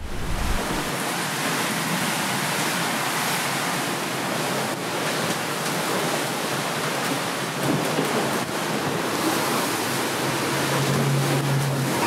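Steady rush of wind and water as a sailing catamaran runs fast through heavy seas, with a brief low hum about ten seconds in.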